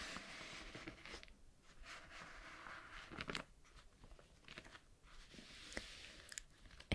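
Soft rustling of paper as pages of a questionnaire booklet are handled and turned, in several short stretches with brief pauses between them.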